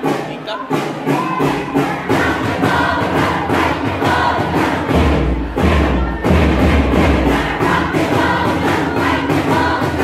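A cheering squad chanting and singing together over a backing track with a steady thumping beat; a deep bass comes in about halfway through.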